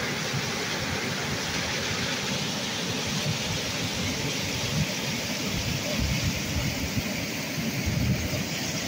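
Muddy floodwater rushing across flooded fields: a steady, even rush of water, with bursts of low buffeting in the second half.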